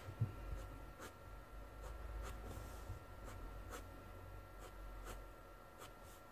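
Fineliner pen flicking short strokes on a brown-paper sketchbook page, a faint scratch about twice a second.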